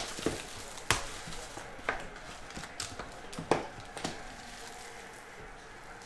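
Cellophane shrink-wrap being torn off a 2022 Topps Tier One trading-card box and the box opened. Crinkling, with several sharp cracks and taps; the loudest come about a second in and about three and a half seconds in.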